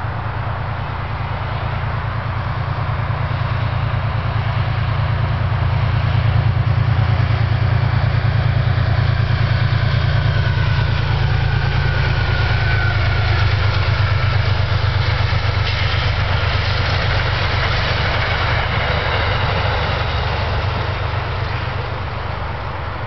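Passing Metro-North train led by a GE Genesis P32AC-DM diesel locomotive. Its engine drones low and steady, growing louder as the locomotive goes by near the middle. A short falling tone comes as it passes, and the sound eases off as the train pulls away.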